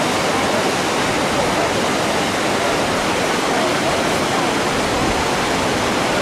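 Steady, loud rush of churning white water on an artificial whitewater rafting course.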